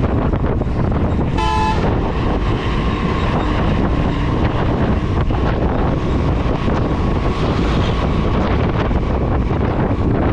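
Steady wind rush on the microphone of a moving motorcycle, with a short horn honk of about half a second about a second and a half in.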